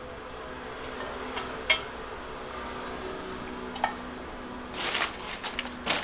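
Light clicks and knocks of small hard objects being handled and set against each other, the sharpest about a second and a half in, then paper wrapping rustling near the end, over a faint steady hum.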